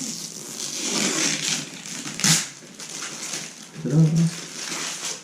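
Uneven rustling and crunching handling noise, like plastic or packaging being worked by hand, with louder crunches a little past two seconds and about four seconds in.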